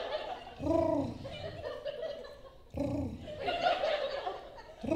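A woman's voice through a microphone imitating Chewbacca's gargling growl, in two bursts: a short one about half a second in and a longer one from about 3 s in, mixed with laughter.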